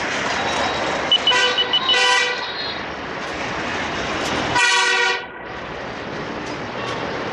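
A horn honking: a few quick toots run into a longer blast, then about three seconds later another short blast. A steady rumble of passing rail and street noise carries underneath.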